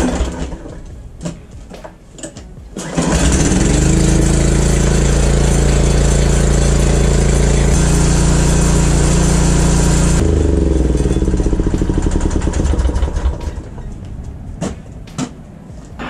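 A few knocks and rattles, then about three seconds in the Huskee rototiller's small engine starts, revs up and runs steadily: the tiller now runs after years unused. About ten seconds in it is shut off and winds down to a stop.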